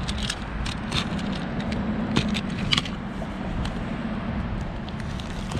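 Utility knife slitting open a cardboard parts box: scattered sharp clicks and scrapes of the blade and the box being handled, over a steady low hum.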